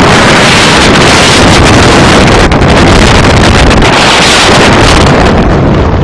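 Strong storm wind blasting straight into a phone microphone: a loud, continuous rushing roar that covers everything else.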